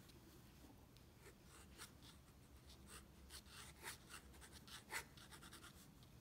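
Faint scratching of a fountain pen nib on sketchbook paper, a run of short quick drawing strokes that grows busier in the second half, with one louder stroke about five seconds in.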